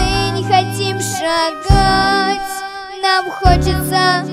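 A young girl singing a song into a microphone over instrumental accompaniment, with held low bass notes under her voice.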